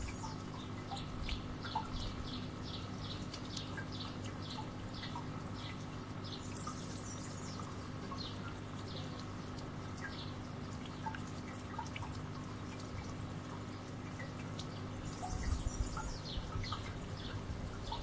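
Outdoor ambience: a steady low hum under a quick run of short high chirps in the first few seconds, then scattered faint chirps and ticks, with low rumbling near the end.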